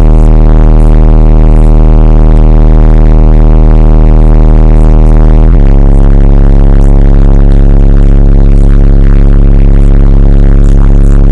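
TC Sounds subwoofer playing a sustained, very loud deep bass tone with strong overtones. The note changes once, about five and a half seconds in.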